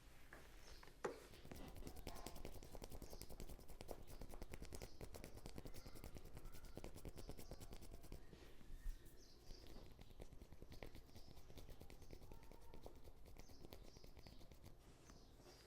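Head massage by hand: fingers working the scalp and hair in a fast, steady, faint patter of small taps and rubs, with a single louder knock about a second in.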